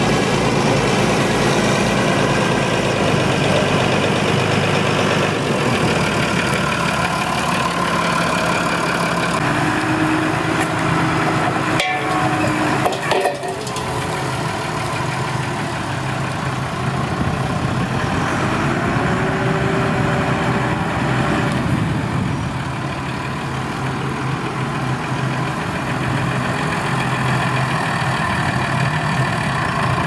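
Farm tractor diesel engines running steadily while pulling reversible ploughs through stubble. There are a couple of sharp clicks around twelve seconds in, and a short rising-and-falling whine about twenty seconds in.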